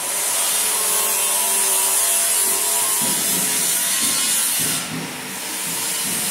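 A power tool grinding metal: a loud, steady, abrasive hiss that eases briefly about five seconds in.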